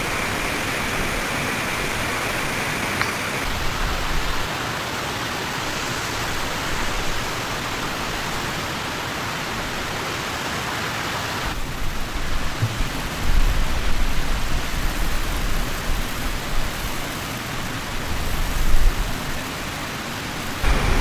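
Steady rushing hiss of wind and snow in a storm, changing abruptly twice, with low gusts of wind buffeting the microphone in the second half.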